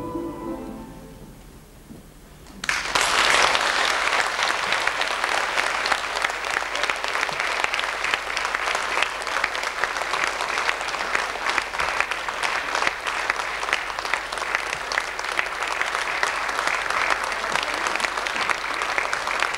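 An orchestra's final sustained chord fading away, then a concert-hall audience bursting into applause about two and a half seconds in and clapping steadily on.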